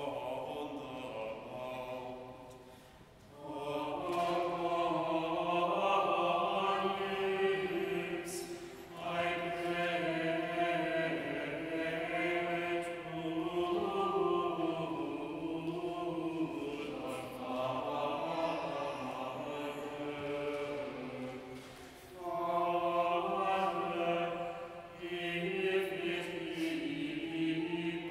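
Choir singing plainsong chant in Mode VIII, a single melodic line delivered in phrases with brief pauses between them.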